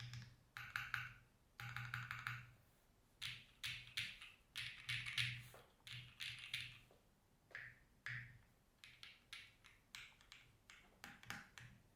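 Typing on a Deadline Studio New Retro 66 mechanical keyboard with lubed Dangkeeb Banana Milk linear switches, FR4 plate and GMK keycaps, built without case foam: quick runs of muted key clacks in bursts with short pauses between.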